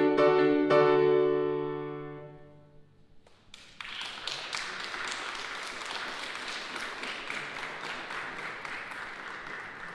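A grand piano's final chord ringing out and fading over about three seconds, then an audience applauding.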